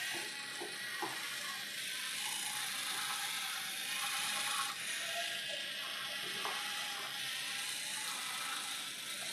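A small LEGO robot's electric drive motors and gears whirring steadily as it drives and turns under gyro-sensor steering, with a few light clicks.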